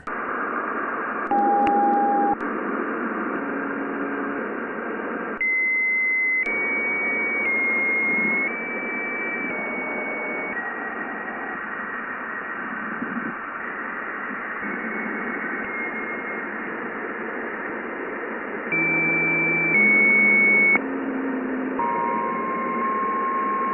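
Jupiter's radio emissions converted into sound: a steady band of radio hiss with whistling tones that each hold a pitch for about a second and then jump to a new pitch, growing louder in a few short stretches.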